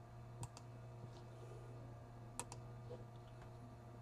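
A few faint computer clicks, two of them quick doubles, over a steady low electrical hum.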